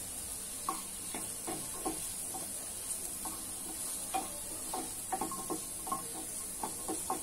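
Spatula stirring and scraping sautéed vegetables around a non-stick pan in irregular taps and scrapes, over a faint steady sizzle from the hot oil.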